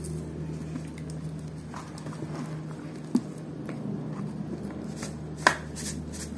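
Soft clicks and taps of a metal teaspoon and a plastic shaker bottle as powder is shaken onto the spoon over the orchid's bark mix. There is a sharper click about three seconds in and a louder one near the end, over a low steady hum.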